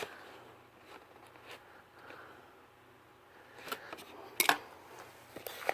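Faint handling noises of small parts and packaging from a doorbell installation kit: a few light clicks and taps, the loudest about four and a half seconds in.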